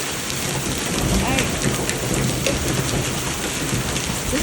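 Hail and rain pelting down in a dense, steady patter with sharp clicks of hailstones striking. A deep rumble of thunder comes in about a second in.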